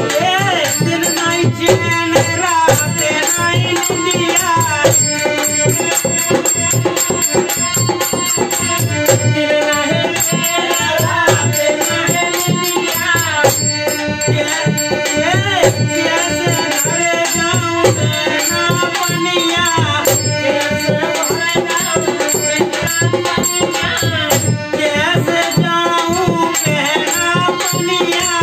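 Devotional folk bhajan played live: men singing over a harmonium's held chords and a dholak beaten in a steady, fast rhythm.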